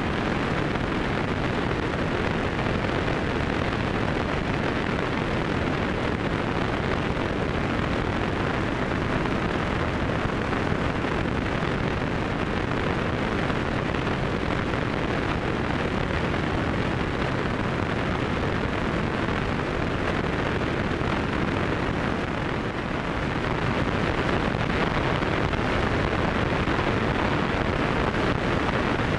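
Steady rush of airflow and engine noise from a Zenith CH200 light aircraft in flight, heard from a wing-mounted camera: wind on the microphone over the drone of the propeller-driven engine. The sound dips slightly about 22 seconds in, then comes back a little louder.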